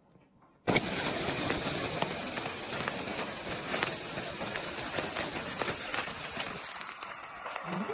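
A sparkler catches about a second in and then burns with a steady fizzing hiss full of fine crackles.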